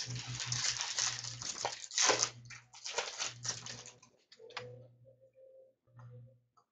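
Hockey card packs being torn open and the cards handled: dense crinkling and rustling of foil wrappers and card stock for about four seconds, then only scattered light rustles.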